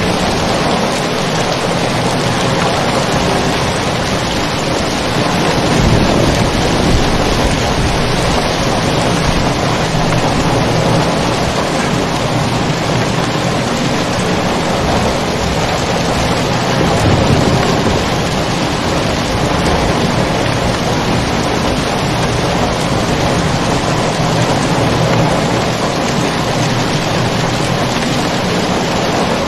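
Heavy, steady rain, with low rumbles of thunder swelling up a few times.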